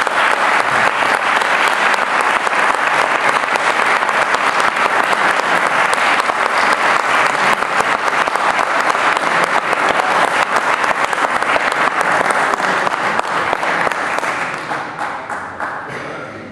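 Audience applauding, a steady dense clapping that dies away near the end.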